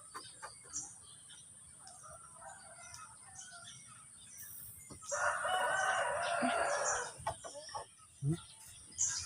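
A drawn-out animal call lasting about two seconds, starting about five seconds in, with faint short bird chirps before it.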